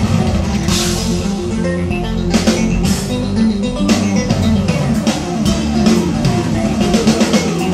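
Recorded music played back over hi-fi loudspeakers: an instrumental dance track with guitar, bass line and drums.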